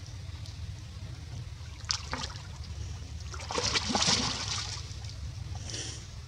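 Shallow stream water trickling over rock, with splashing as a baby monkey paddles and drinks in it; the loudest splashing comes around the middle. A steady low rumble runs underneath.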